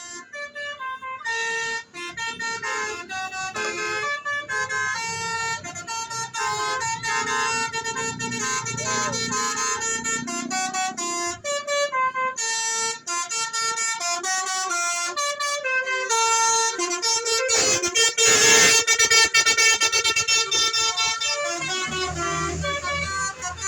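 Telolet musical air horn on a bus, a multi-tone basuri horn, playing a tune of held horn notes that step from pitch to pitch. A louder, harsher blast comes about three quarters of the way through.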